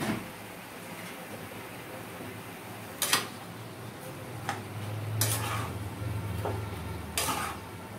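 A spatula stirring chopped snake gourd in a kadai, making about five short clatters and scrapes against the pan. The loudest comes about three seconds in.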